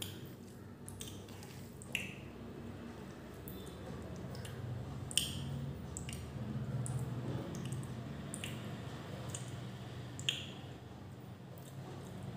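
Eating by hand: wet squishing of fingers mixing vegetable pulao and beef curry on a steel plate, with a few sharp wet clicks, about four in all.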